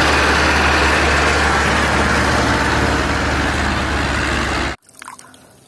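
Farm tractor diesel engine running as the tractor drives, a loud steady sound with a deep low hum underneath. It cuts off suddenly near the end.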